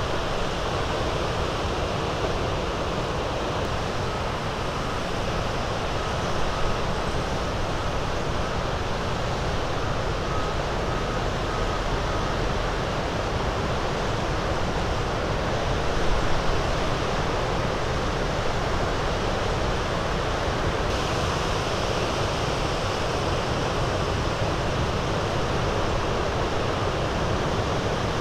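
Small lake waves breaking along the shore: a steady wash of surf, with wind rumbling on the microphone.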